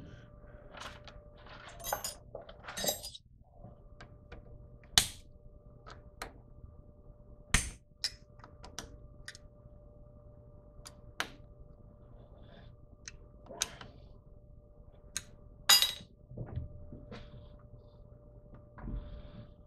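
Irregular metal clicks, knocks and clanks from hand work on a metal lathe as it is set up for a cut, a few of them sharper and louder, over a faint steady hum.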